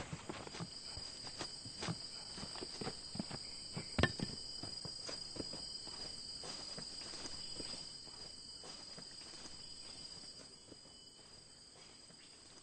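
Insects chirring steadily at a high pitch, with irregular footsteps on the ground that fade away during the last few seconds.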